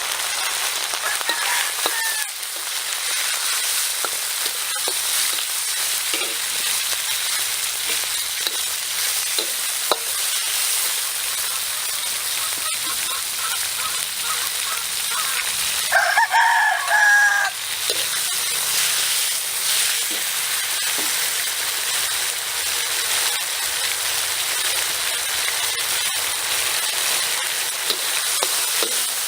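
Beef and vegetables sizzling steadily as they fry. About sixteen seconds in, a loud animal call lasting a second and a half rises over the sizzle.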